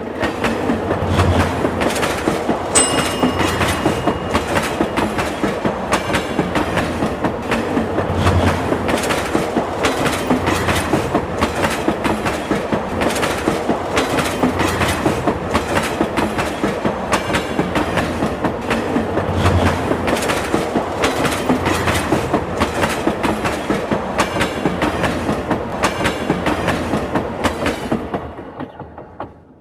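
Train running on the rails, its wheels clattering rhythmically over the rail joints with a steady low rumble; it fades out near the end.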